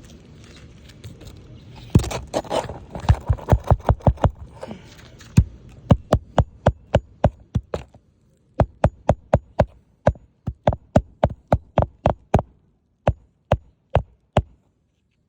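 Hammer driving roofing nails into a shingle: rapid sharp strikes, about four or five a second, in runs of several with short pauses between nails.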